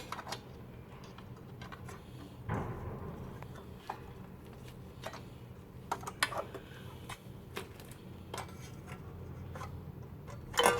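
Scattered clicks and small knocks of plastic parts being handled as a Cisco access point is fitted onto its mounting bracket, with a brief scrape about two and a half seconds in, over a faint low hum.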